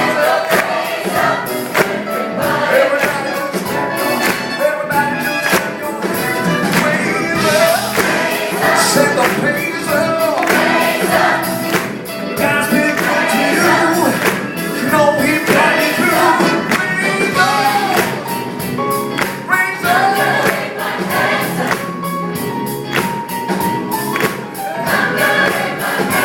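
A gospel choir singing an up-tempo song with a live band, tambourine and drums keeping a steady beat.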